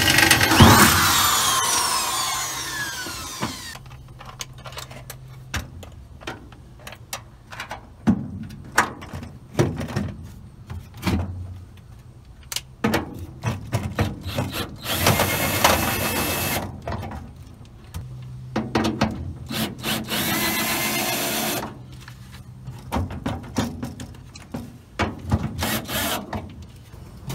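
Cordless drill running in several spells of a second or a few seconds, drilling and driving self-tapping screws into a steel sheet-metal wall. Between the spells there are short clicks and knocks of handling. The first spell winds down in pitch.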